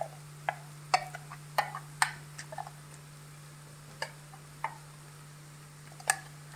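Scattered sharp pops and ticks of hot oil spitting as wet red chilli masala paste lands in a pan of frying onions and garlic. They are irregular, thickest in the first few seconds and sparser after, over a steady low hum.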